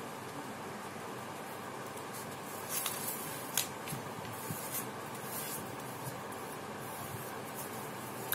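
A sheet of paper rustling and rubbing under the hands as it is folded in half and the crease pressed flat, with a few short crackles a few seconds in, over a steady hiss.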